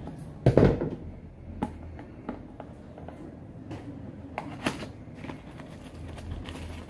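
Scissors cutting the seal on a small cardboard box, with a loud scraping crunch about half a second in. Scattered light clicks and taps follow as the box is handled and its end flap pulled open.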